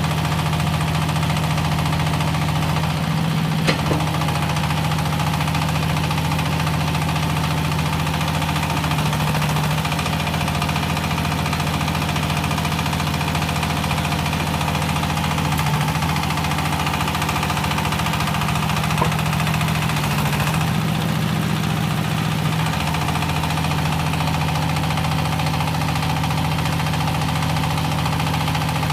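Hydraulic scrap-metal baler's power unit running with a steady low hum that shifts slightly a few times, with a sharp click about 4 seconds in and another about 19 seconds in.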